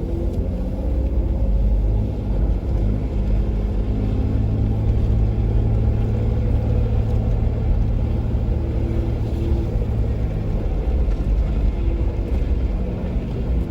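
Jeep Wrangler JK driving on a dirt backcountry trail: a steady low engine drone with rumble.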